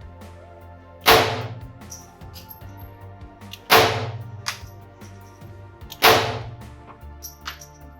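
FN Model 1922 .32 ACP pistol fired three times, single shots about two and a half seconds apart, each bang ringing out briefly.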